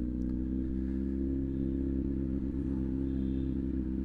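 Kawasaki Z900's inline four-cylinder engine running at a steady, unchanging speed, with no revving.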